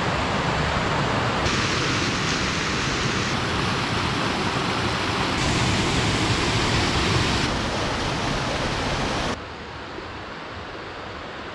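Steady rush of a mountain stream's flowing water. Its hiss shifts abruptly in brightness a few times and drops quieter about nine seconds in.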